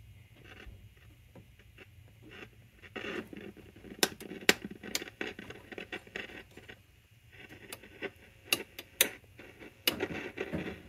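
1940 RCA tube radio's speaker hissing with static while being tuned by hand across the band, with sharp crackles and clicks scattered through it.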